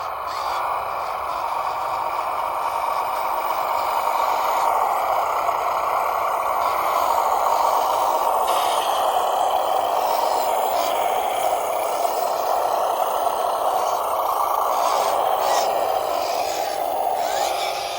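WPL C24-1 RC truck driving, its brushed 370 electric motor and gearbox running with a steady whine and a rattle. The sound builds over the first few seconds and falls away near the end, with a few short clicks.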